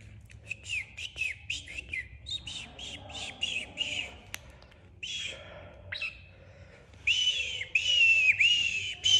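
Red-whiskered bulbul giving quick runs of short, high chirps, each dipping in pitch, in bursts through the first few seconds and loudest near the end.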